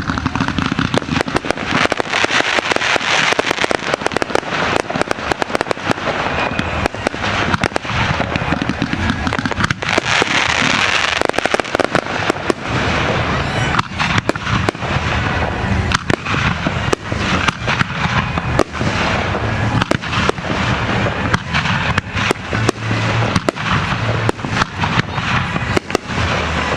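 Aerial fireworks shells bursting in rapid, overlapping succession: many sharp bangs one after another over a continuous crackle.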